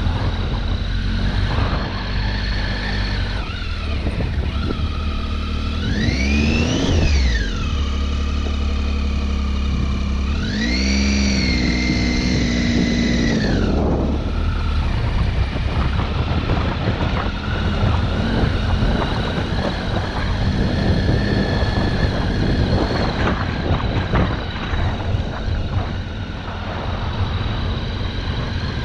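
Triumph Tiger XC motorcycle's three-cylinder engine running under way on a dirt track. It revs up sharply about six seconds in and drops back, revs up again about ten seconds in and holds there, then eases off about fourteen seconds in.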